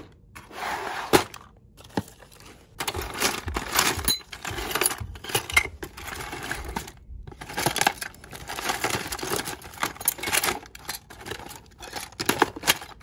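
Hand rummaging through a plastic drawer packed with spare model train parts: small plastic and metal pieces clattering and clinking against each other in irregular bursts, with two brief pauses.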